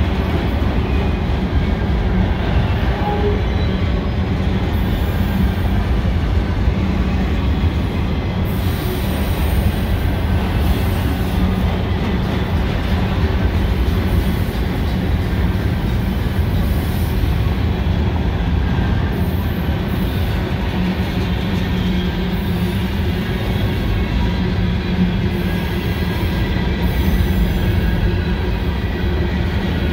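Freight cars rolling steadily past, autoracks and then tank cars, with a continuous rumble of steel wheels on rail. Faint high wheel squeal comes through at times as the cars take the curve of the wye leg.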